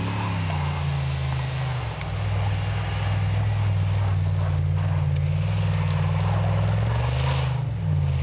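A 1994 Chevrolet Blazer's engine revving hard as it spins its tyres through snow doing donuts. The revs ease briefly in the first two seconds, then are held high and steady, with one short dip near the end.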